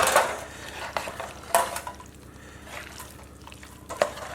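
A utensil knocking and scraping against a dish while roasted vegetables and chicken are mixed into cooked pasta: a few irregular clinks and scrapes, the loudest right at the start and about a second and a half in.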